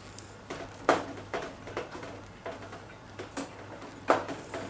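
Knitting needles clicking against each other in short, irregular sharp clicks, about one or two a second, as stitches are bound off one at a time.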